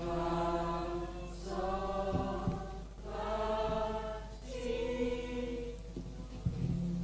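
A group of people singing solfège syllables together: four held notes, each about a second long, with short breaks between, moving to a different pitch on each note.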